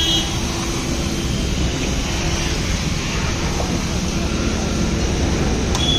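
High-pressure washer running, with water jetting from its spray gun: a steady hiss over a low, even hum from the pump.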